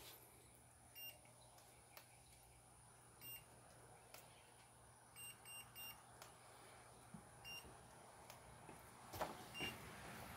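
Handheld infrared thermometer giving short electronic beeps as it takes readings off duck eggs: single beeps a couple of seconds apart, with a quick run of three in the middle, over near silence.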